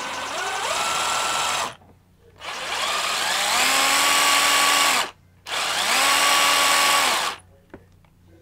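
Bosch GDR 10.8-LI cordless impact driver running with no load, trigger pulled three times for about two seconds each. Each time the motor whine climbs in pitch as it spins up, then holds steady until it is released.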